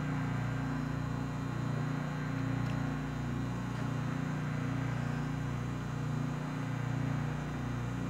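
Steady low machine hum from an SST 2200 Turbo vacuum furnace running its process cycle, with a slight waver. The chamber is held under vacuum while it heats toward its 275 °C soak.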